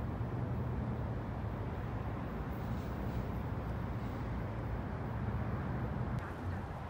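Steady low outdoor rumble of background noise, even throughout with no distinct events.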